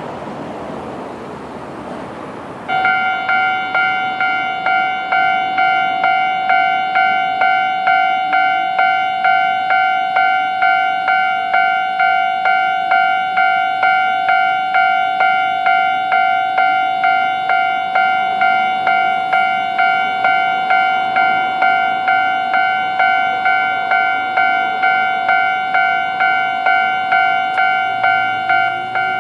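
Electronic warning bell of a Japanese railway level crossing switching on suddenly about three seconds in, then ringing an even, repeating ding at roughly one and a half strikes a second: the crossing is warning of an approaching train.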